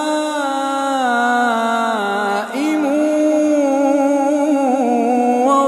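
A man's solo voice chanting Quranic recitation in long, drawn-out melodic notes. The pitch slides down about two seconds in, breaks off briefly, then the chant resumes on a higher, wavering line.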